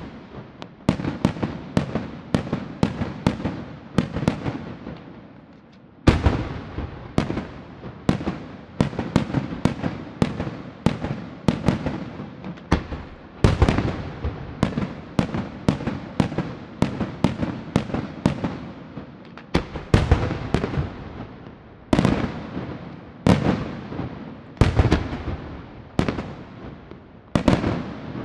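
Aerial firework shells bursting in quick succession during a display, two or three sharp bangs a second, each trailing off in an echo; a louder burst comes about six seconds in.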